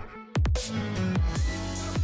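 Electronic background music with deep bass hits that fall in pitch. It drops out briefly at the start and comes back in loud about a third of a second in.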